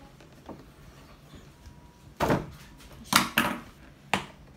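Cardboard box being opened: scissors cutting the tape and the flap worked loose, heard as four short, sharp rasping sounds, the first about two seconds in and the last near the end.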